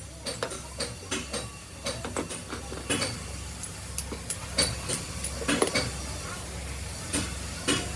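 Irregular sharp knocks and clicks from hand tools at work on a starter motor, over a steady low hum.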